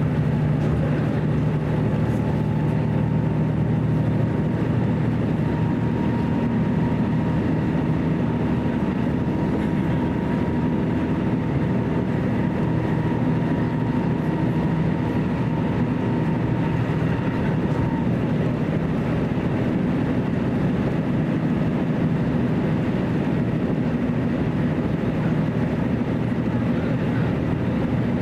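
Running sound inside a JR Tokai KiHa 75 diesel railcar: a steady diesel engine drone with a whine that rises slightly in pitch over the first few seconds, holds, and stops about eighteen seconds in.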